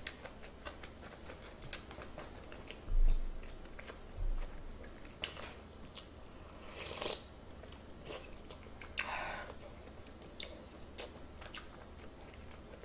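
Close-up eating sounds: a person chewing a spoonful of doenjang stew, with small wet mouth clicks throughout. Two dull thumps come about 3 and 4 seconds in, and two short airy noises about 7 and 9 seconds in.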